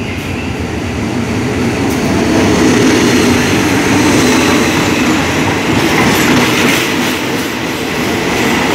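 Diesel-electric locomotive (SRT GEA class, General Electric-built) passing close by, its engine loudest about three seconds in as it draws level, followed by passenger carriages rolling past with wheels clattering over the rails.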